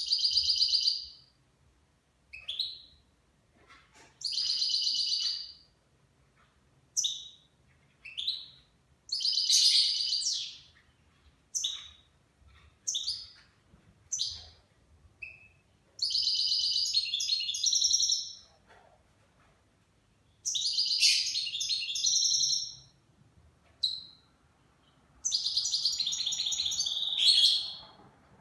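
A caged nine-month-old goldfinch singing: about a dozen high, twittering phrases with short pauses between them. Several phrases are longer fast trills of one to two seconds. This is song in what the owner calls the Levantine (Shami) style.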